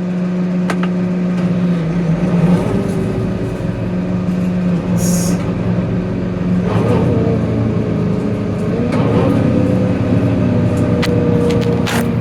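New Holland tractor engine running under load, driving a straw bedding machine through the PTO. The engine note is steady and shifts in pitch about two seconds in and again around seven to nine seconds, with a few sharp clicks near the end.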